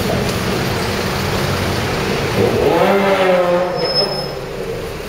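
Suzuki GSX-R 1000's inline-four through a loud aftermarket exhaust, running with a steady low drone, then revving up about two and a half seconds in, its pitch rising and then easing off.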